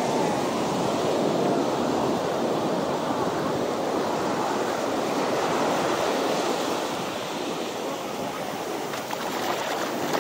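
Ocean surf washing up on a sandy beach: a steady rush of breaking waves that eases slightly near the end.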